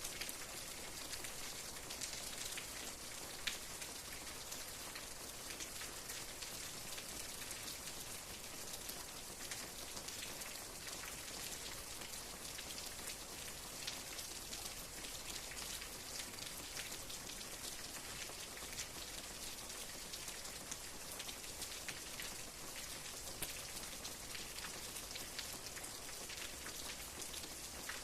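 Steady rain falling, an even hiss of many fine drops ticking on a surface.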